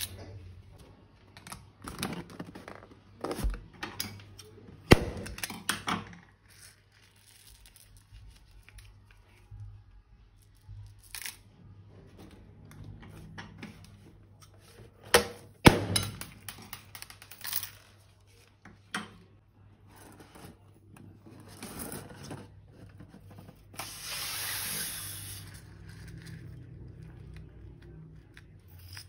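Hands handling balloons and piping bags of slime ingredients: scattered clicks, snaps and crinkles, with a short hiss near the end.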